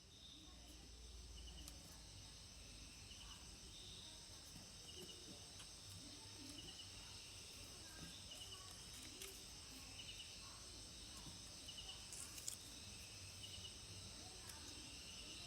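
Faint insect chorus: steady high-pitched trilling with a short pulsed chirp about once a second. A few soft clicks, one louder about three-quarters of the way in.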